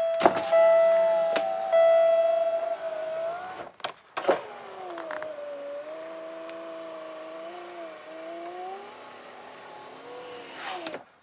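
Electric power-window motor of a 1997–2003 Pontiac Grand Prix running the glass, a motor the owner says is slow. A steady chime tone sounds over the first two to three seconds, the motor stops with a couple of clicks about four seconds in, then runs on with a wavering whine.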